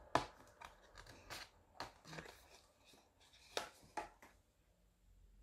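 Plastic packaging of a transparent phone case being handled and opened: a run of small clicks and crinkles, the sharpest about three and a half and four seconds in, then dying away.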